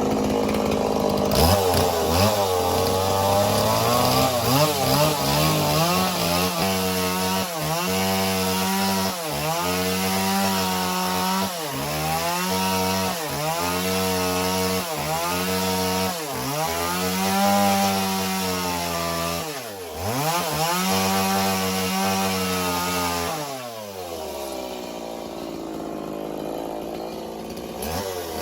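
Stihl chainsaw cutting into wood, its engine revs dipping and recovering every second or two as the chain bites. Near the end the revs fall away and it settles to idle.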